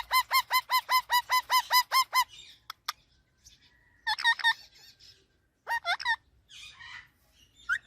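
A parrot calling: a fast run of short, repeated honking squawks, about five a second, for the first two seconds, then a few separate calls.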